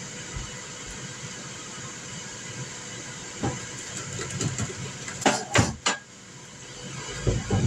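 Ninja Foodi indoor grill preheating with its fan running in a steady hiss-like whir, a sound the owner finds louder than normal and fears means it is failing. Several knocks and clatters cut in from about halfway, the loudest a little after five seconds.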